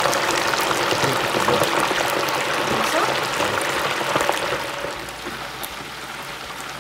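Chicken wings deep-frying in a Paderno 3.5-litre electric deep fryer: the hot oil bubbles hard with dense fine crackles, and the sound drops somewhat in level about five seconds in.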